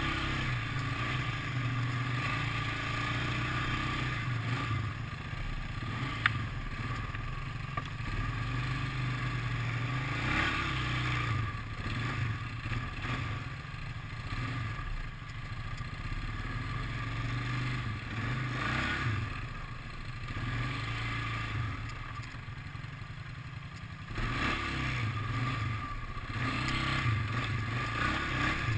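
ATV engine running at low trail speed, its note rising and falling with the throttle as the quad picks its way over rough ground. A single sharp click comes about six seconds in, and the engine pulls harder near the end.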